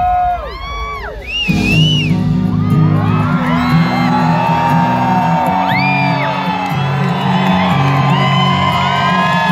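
Festival crowd whooping and yelling as a bass-heavy beat comes in about a second and a half in. The whoops carry on over the music.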